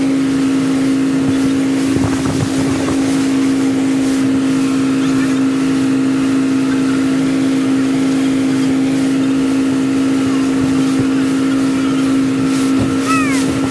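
Motorboat engine running with a steady, even drone. A few short high falling chirps sound near the end.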